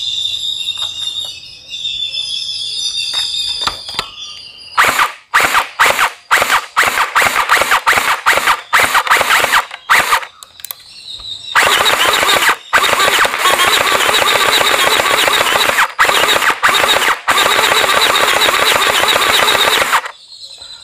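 HK416D gel blaster firing at a target board. From about five seconds in it fires short bursts of rapid shots, then from about eleven seconds in long rapid-fire bursts with the electric gearbox cycling, stopping shortly before the end.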